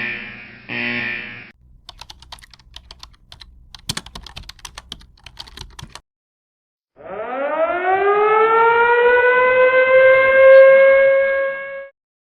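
Loading sound effects: two short electronic tones, then about four seconds of rapid keyboard-like clicking, then after a brief gap a loud tone that rises in pitch, holds steady for about four seconds and cuts off suddenly.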